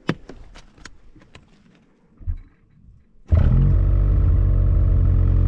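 A few light ticks and a low thump, then about three seconds in the Ski-Doo Summit X's two-stroke 850 E-TEC turbo engine fires up abruptly and runs steadily and loud.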